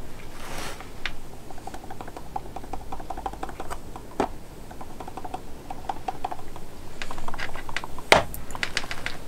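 Battery-powered WWS static grass applicator being shaken over the layout: a steady patter of light, fast ticks and rattles, with a few louder sharp clicks about four seconds in and several more near the end.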